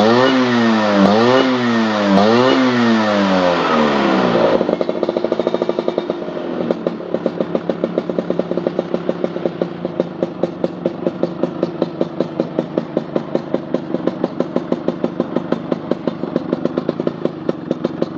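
Motorcycle engine running through a PRP aftermarket muffler. It is revved in quick blips about once a second, then drops back about four and a half seconds in to a steady, evenly pulsing idle.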